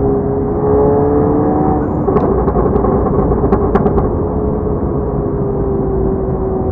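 Volkswagen MK7 GTI's turbocharged 2.0-litre four-cylinder running through a 5150 Racing aftermarket exhaust while driving: a steady engine drone that climbs a little, with a handful of sharp crackles from the exhaust about two to four seconds in, then the pitch eases down as the throttle comes off.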